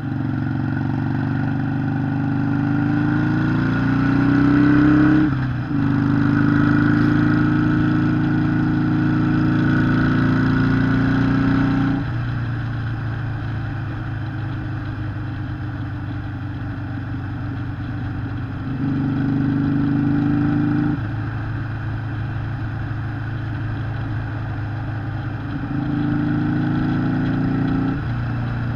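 Harley-Davidson Sportster 883 SuperLow's air-cooled V-twin engine running under throttle. The revs climb for about five seconds, dip sharply and then hold steady. About halfway through they fall back to a lower, steady note, and twice more they pick up briefly.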